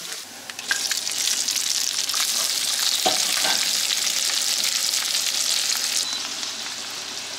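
Shrimp going into hot fat and diced pork belly in a non-stick frying pan: a loud sizzle surges up about a second in, with a plastic spatula stirring and scraping the pan, and eases somewhat near the end.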